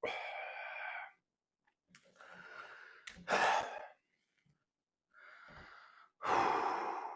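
A man sighing and breathing out heavily, about five breathy exhales in a row. The last one, near the end, is the loudest.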